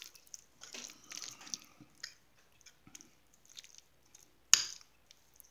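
Tuna salad with mayonnaise and relish being stirred in a bowl with a utensil: faint, wet squishing and scraping, with one sharp knock a little past halfway.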